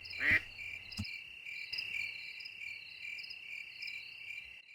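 Crickets chirping steadily, an even, high, pulsing trill of night ambience. A short pitched sound comes just after the start, and a faint click about a second in.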